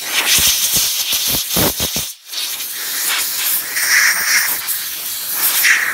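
Compressed-air blow gun hissing as it blasts out a brake caliper's guide-pin bore, blowing out brake cleaner and dirt. The air stops briefly about two seconds in, then runs again and cuts off near the end.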